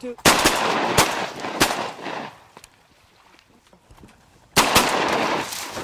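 Shotguns firing at ducks in two volleys: a loud burst of shots about a quarter second in, with further shots about a second and a second and a half in, then a second burst of shots about four and a half seconds in.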